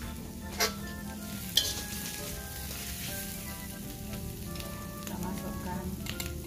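Cabbage and mustard greens sizzling as they stir-fry in a steel wok over a gas flame. Two sharp metal clinks come about half a second and a second and a half in, with quiet background music underneath.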